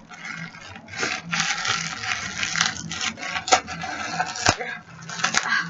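Plastic bubble wrap rustling and crinkling as it is pulled open by hand, with a couple of sharp snaps, the louder one about four and a half seconds in.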